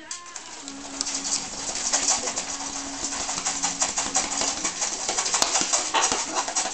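Blue-and-gold macaw flapping its wings hard while gripping a perch, a rapid, continuous fluttering of wingbeats that builds up about a second in.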